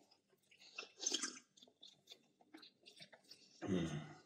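Close-miked mouth sounds of eating soft yeast pancakes (blini): quiet chewing with small wet clicks and lip smacks, a louder burst about a second in, and a brief low sound near the end.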